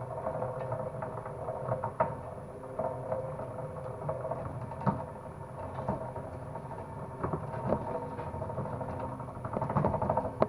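Homemade wire-stripping machine running with a steady motor hum, a degaussing cable feeding through its knives, with irregular clicks and knocks.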